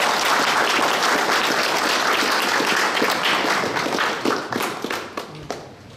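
Applause: a group of people clapping, dense at first, then thinning to scattered claps and dying away about five seconds in.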